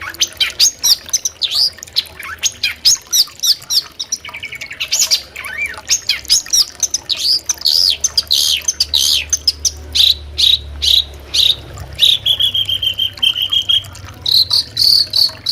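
Long-tailed shrike (cendet) singing a fast, varied chattering song of quick rising and falling notes. About twelve seconds in it changes to a steady trill for about two seconds, and near the end an insect's evenly pulsing chirp begins.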